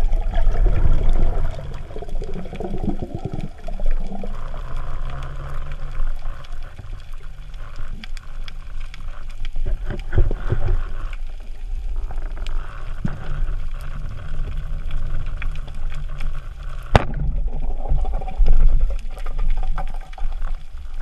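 Underwater water noise heard through a GoPro's waterproof housing while swimming: steady rushing and a low muffled rumble. One sharp click comes about three-quarters of the way through.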